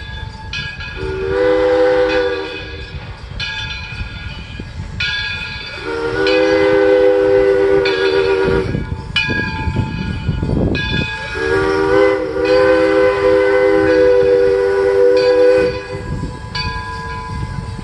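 Chime whistle of the Edison steam locomotive sounding three blasts, each longer than the last, a chord of several tones. Under the blasts is the steady low rumble of the train going by.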